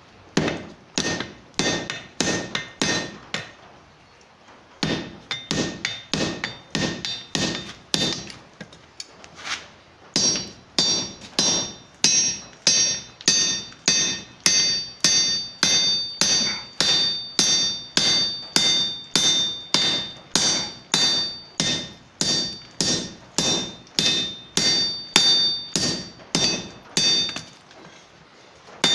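Blacksmith's hammer striking metal on an anvil in a steady rhythm, about two blows a second, each blow leaving a ringing metallic tone. Brief pauses come about four seconds in and near the end.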